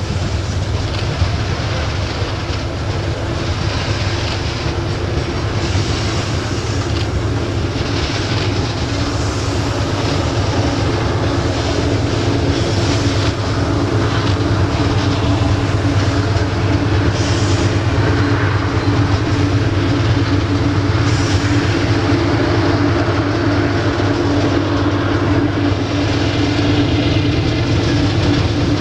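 Iron ore freight train running past: a loud, steady rumble of wheels on rail with some clickety-clack, and a steady hum that grows stronger about halfway through.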